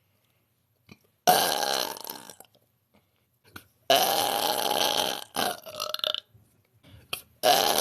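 A woman belching loudly, three long burps: the first about a second in, the second about four seconds in trailing off into a few shorter bits, and the third starting near the end.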